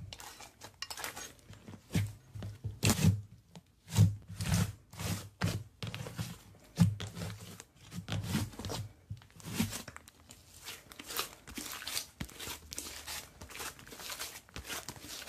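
Slime being squeezed and stretched by hand, giving irregular crackling, popping clicks.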